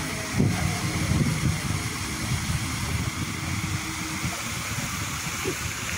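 Water jets of a large tiered ornamental fountain spraying and splashing down into the basin: a steady hiss of falling water with a low rumble underneath.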